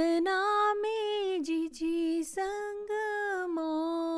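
A woman singing the opening of a Chhath devotional folk song alone in long held, gliding notes, with short breaks for breath.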